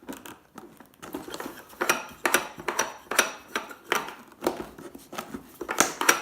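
Hard plastic and metal clicking, knocking and scraping as a tool pries at the housing of a steering-wheel game controller to force the wheel off. The clicks are irregular, sparse for about the first second, then come several a second.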